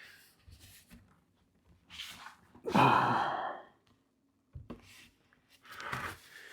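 A person sighing out a long breath, with short breathy sounds around it and a brief knock about four and a half seconds in.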